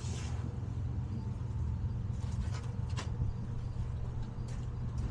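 Steady low mechanical hum with a few light clicks and taps.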